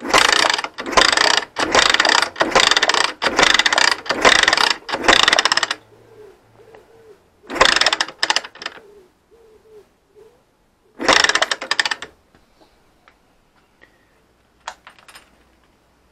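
A small motorcycle engine being cranked over by its electric starter: one long run of about six seconds with a pulsing beat, then two short bursts, and it never fires. The bike has no spark.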